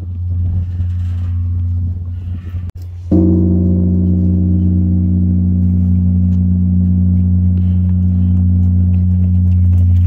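Large hanging temple bell: a deep, steady hum, then a fresh strike about three seconds in, its higher tones fading over a few seconds while the deep hum carries on.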